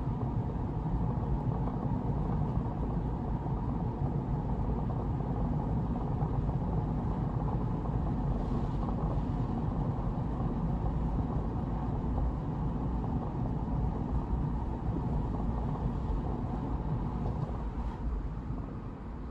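Steady low rumble of a car's tyres and engine heard from inside the cabin while driving, easing slightly near the end.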